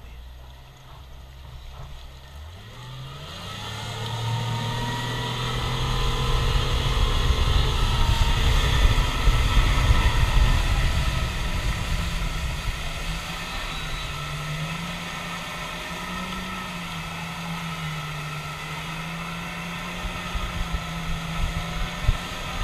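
Speedboat outboard motor speeding up, its pitch rising over the first few seconds, then running hard at a steady, slightly wavering pitch while towing, with wind buffeting the microphone and the rush of water.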